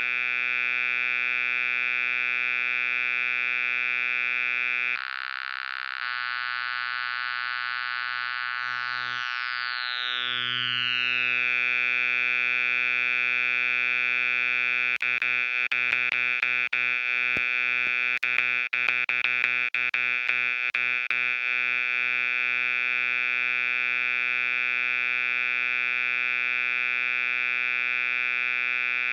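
Software synthesizer (Arturia Analog Lab V) holding one steady droning tone rich in overtones. The tone changes briefly about five seconds in and has a falling sweep around ten seconds in. From about fifteen to twenty-one seconds it is broken by a run of clicks and stutters.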